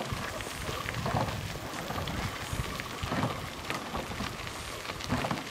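Wind buffeting the microphone, with scattered light knocks and rustles from a handheld camera in motion.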